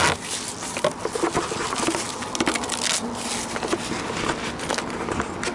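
Rubbery Plasti Dip coating being peeled and torn off a vehicle's painted bumper and fender, a dense crackling rip. It is heaviest for the first three seconds and thins out after.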